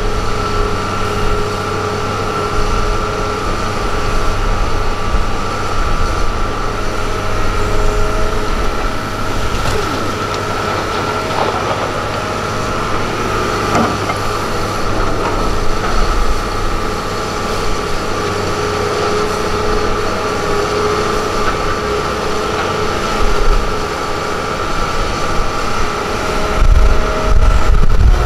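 Hitachi Zaxis 330LC excavator's diesel engine running under load as it digs and swings, with a steady high whine over the engine rumble. Near the end the rumble grows louder as a bucketload of soil pours into the dump truck's bed.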